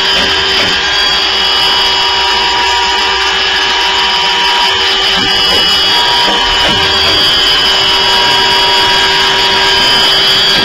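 Williams & White TFH-CS2 saw top-and-face grinder running its automatic grinding cycle. Steady machine whine over a continuous grinding hiss.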